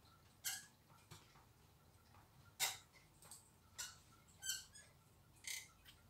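Zebra finches giving short calls, about seven faint chirps at irregular intervals.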